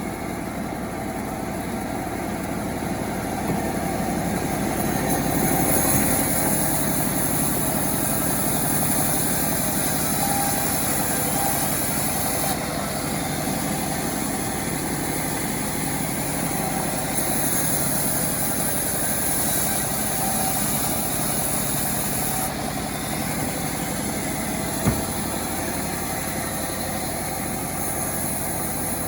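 Self-assembled chainsaw's small engine running steadily, its tone shifting several times, with one sharp knock near the end.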